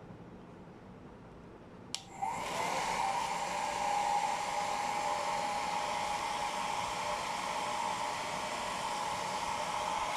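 Philips BHC010 hair dryer switched on with a click about two seconds in, its motor spinning up to a steady whine over a rush of air, running on its first, cold-air setting.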